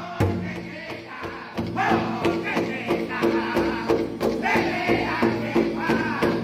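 Powwow drum group striking a large shared drum together in a steady beat. About a second and a half in, high-pitched group singing comes in and the beat quickens.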